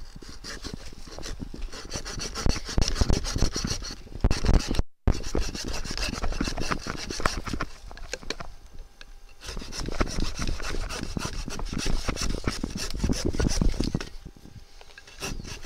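Hand saw with a dual-tooth blade cutting through a dead fallen log in quick back-and-forth rasping strokes, easing off briefly a little past halfway and again near the end.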